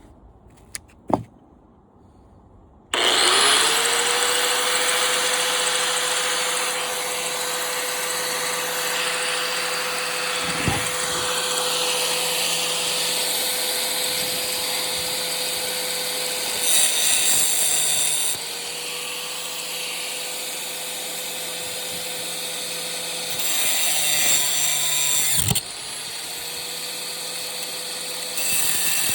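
Electric angle grinder with a cut-off wheel spinning up about three seconds in and running loud, cutting through metal of a window air-conditioner. There are louder stretches as the wheel bites, and the motor dips and spins back up near the end.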